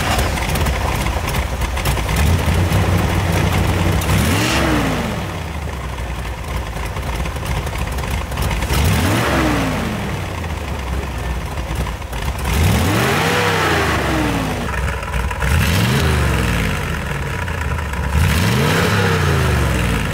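1969 Chevrolet Corvette's 350 V8 with aluminum heads, breathing through side pipes, idling and revved five times. Each rev rises and falls quickly back to idle, and the third, about thirteen seconds in, is the highest and longest.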